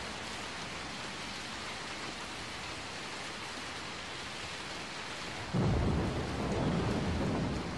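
Steady rain, then a sudden loud clap of thunder about five and a half seconds in that rumbles on.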